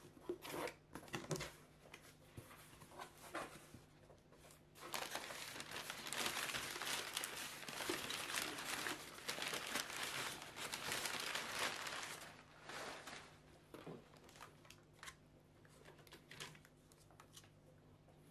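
Packaging being crinkled and handled as a mystery box is opened: scattered rustles and clicks, then several seconds of dense crinkling starting about five seconds in, then more scattered rustling.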